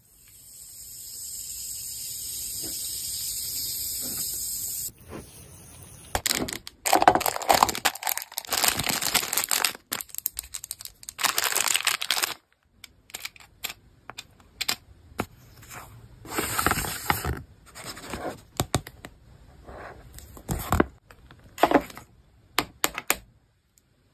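A toy's packaging wrapper being torn open and crinkled, in dense crackly bursts from about six to twelve seconds in, then scattered short rustles and crinkles as it is handled. A steady hiss fills the first five seconds.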